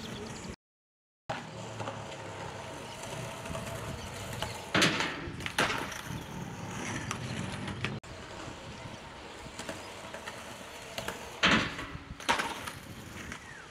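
Skateboard wheels rolling on concrete, with two pairs of sharp clacks, around five seconds in and again near the end: the tail popping and the board landing during kickflip attempts.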